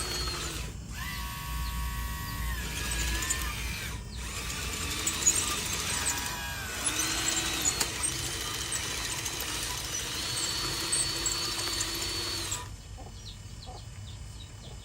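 Electric motors and gearing of radio-controlled construction models whining, the pitch rising, holding and falling several times as the throttle is worked. Near the end the whine drops away and it goes quieter.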